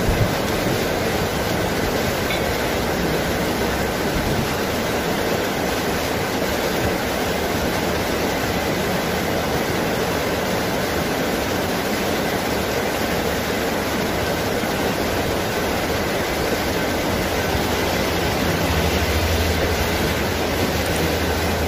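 Heavy rain falling steadily on rainforest foliage, a dense, even hiss. Near the end a low rumble of thunder comes in underneath.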